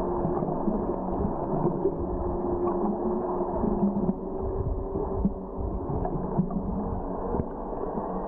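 Muffled underwater sound picked up by a waterproof compact camera held below the surface: a low, steady rumble with a few held humming tones and occasional small clicks.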